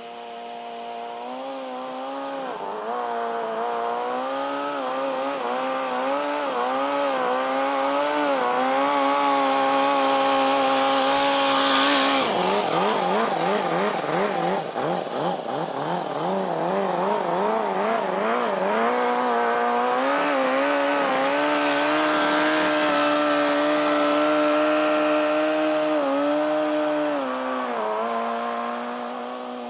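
Toyan FS-L400 four-cylinder four-stroke nitro model engine driving a moped, running at high revs with a thin, high pitch. It grows louder over the first few seconds, wavers rapidly in pitch for several seconds in the middle, and fades near the end.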